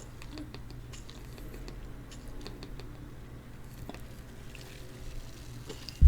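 Faint gulping and swallowing as carbonated soda is chugged straight from the bottle, with soft irregular clicks of the throat and mouth.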